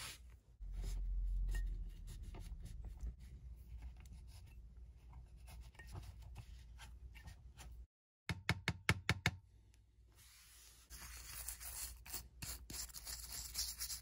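Close-up scrubbing and handling of a vintage calculator's plastic battery compartment and cover: light taps and clicks, a quick run of sharp clicks near the middle, then a hissing rub of the cleaning tool on the plastic from about eleven seconds in.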